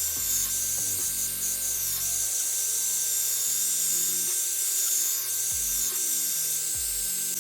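Hot air brush hair dryer blowing steadily over background music with a low bass line.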